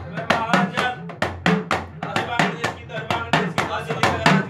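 Deru drums beaten with curved sticks in a fast, steady rhythm of about five strokes a second, with a deeper beat roughly every half second, under men singing a devotional bhajan.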